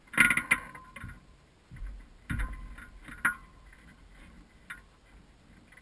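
Several sharp knocks and rattles from the hang glider's aluminium frame and harness gear being handled, picked up through the frame-mounted camera; a loud cluster just after the start, more about two seconds in, and a sharp single knock a second later.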